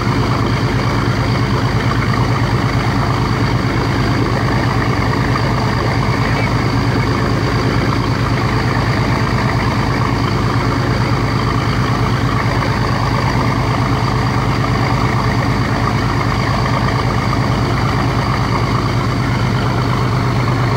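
A motor boat's engines running steadily underway, a deep, even drone with a fast pulse, with water rushing along the hull from the bow wave.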